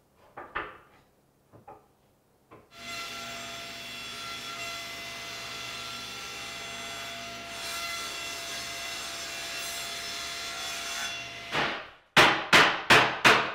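Table saw running and ripping a bevel along a walnut case side: a steady whine for about nine seconds, after a few light clicks at the start. Near the end, a quick run of about six sharp, evenly spaced strokes.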